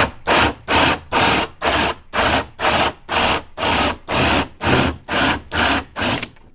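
Cordless drill driving a hole saw up into wooden ceiling boards, run in short, evenly spaced bursts, about three a second.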